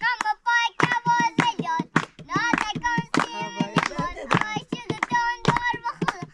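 A child singing in a high voice, with many sharp taps in between the notes.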